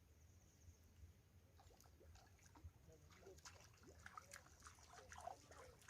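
Near silence: faint outdoor background with a low steady hum and scattered faint, brief sounds.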